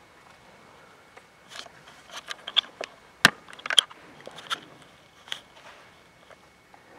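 Scattered small clicks and knocks in a quiet concert hall as a wind band readies its instruments before the first downbeat, the two sharpest coming a little past midway; no music is playing yet.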